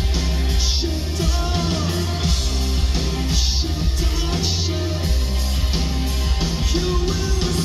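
Live rock band playing: a man singing over electric guitars, bass, keyboards and drums, with cymbals hit about once a second.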